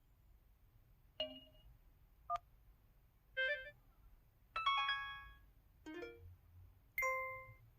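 Dial-pad touch tones of a Pantech SKY Vega Racer phone, six short electronic chimes about a second apart, each in a different voice from one of the phone's dial-tone sets. The fourth, about halfway through, is the loudest and rings longest.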